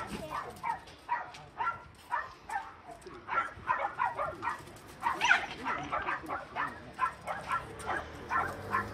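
A dog yipping and whining in short, repeated bursts, a few each second, with one louder yelp about five seconds in.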